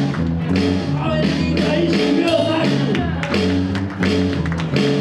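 Live band music with electric guitar and bass over a steady beat, played through PA speakers.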